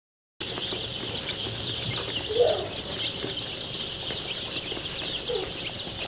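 Many young country chicks peeping continuously in a dense chorus of short, high, falling chirps. A single lower call stands out about two seconds in.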